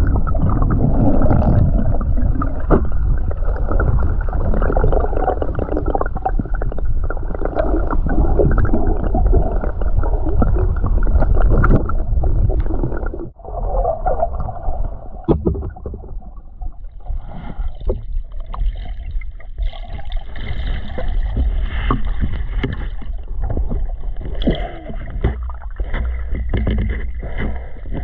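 Muffled underwater sound picked up through a sealed camera housing: a dense low rumble with gurgling water and many small clicks and knocks. About thirteen seconds in it drops off sharply and then goes on quieter and thinner.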